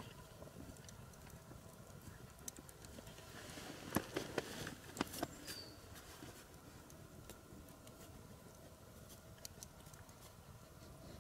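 Campfire crackling with faint scattered pops, mixed with light rustling of a dog's paws on dry pine needles and forest litter; a brief cluster of louder clicks and rustles comes about four seconds in.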